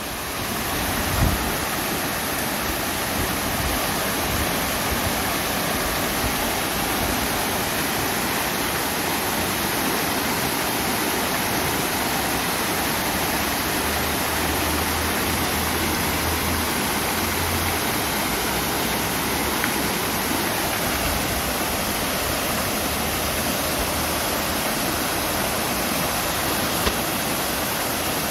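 Steady rush of flowing spring water, a constant even hiss of a stream or channel, with a brief low bump about a second in.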